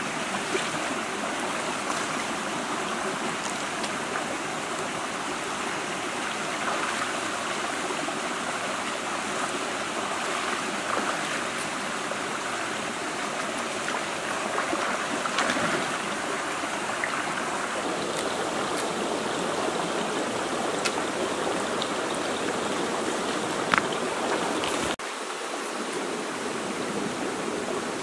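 Shallow rocky stream running steadily, with one sharp click near the end.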